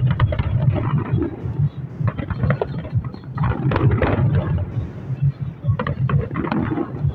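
Aerial fireworks bursting in rapid succession: a dense run of booms and crackles over a constant low rumble.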